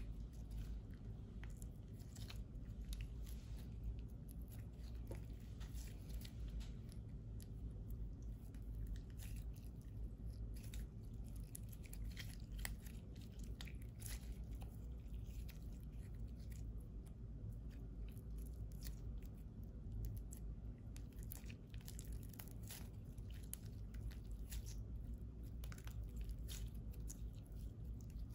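Clear slime mixed with lipstick being squeezed and kneaded by hand: a continuous stream of irregular sticky clicks and squelches.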